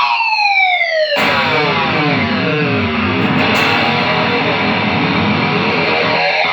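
Electric guitar played through a Line 6 POD HD500 multi-effects unit into a Pignose G40V tube amp. In the first second a note's pitch slides down; after that a pitch effect sends the tones sweeping up and down over the held notes. The unit has just been repaired after fried A/D converters.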